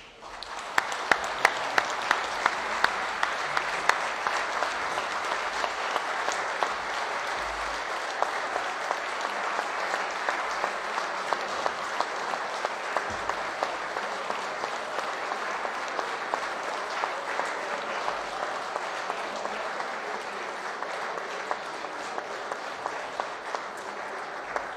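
A large roomful of people applauding, starting suddenly and carrying on steadily, with a few sharp, loud single claps standing out in the first few seconds.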